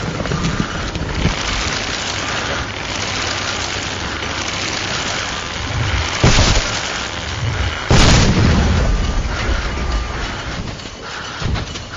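Cartoon sound effects of excavator and mine blasting: a steady rough rumbling of digging machinery, then two explosions about six and eight seconds in, the second the louder, trailing off in a rumble.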